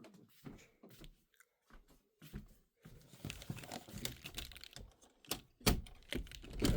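Food wrapping crinkling and tearing as shawarma is unwrapped and eaten, in scattered crackles that grow busier after about three seconds, with one louder knock near the end.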